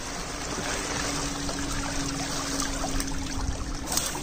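Pond water rushing out under pressure through an opened sluice gate, a steady even rush of flowing water. A faint steady hum runs through the middle, and there is a short click near the end.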